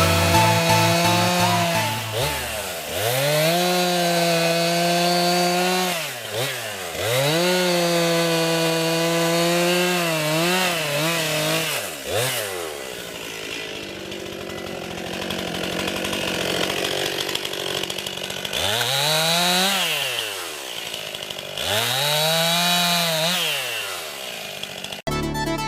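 Gas chainsaw cutting wood, throttled up to a high, steady scream and held for a few seconds at a time, then dropping back, several times over.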